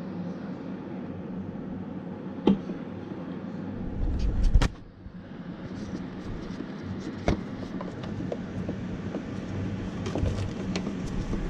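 Hands working at a radiator's plastic drain fitting: scattered clicks and knocks, with a louder low rumble and thump about four and a half seconds in, over a steady low hum.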